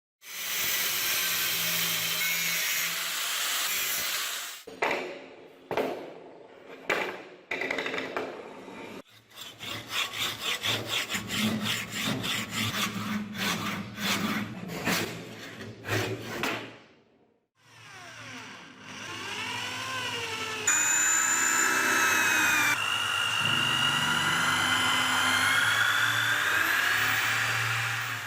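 A run of restoration tool sounds, likely on the grater's metal: a few seconds of steady rasping, then separate scraping strokes, then fast even scraping strokes. From about two-thirds of the way in, a louder tool runs with a whine that wavers up and down in pitch.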